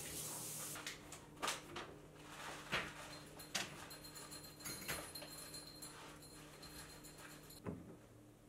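A tap running and shut off about a second in, then scattered clinks and knocks of dishes and kitchenware being handled, about half a dozen spread over several seconds.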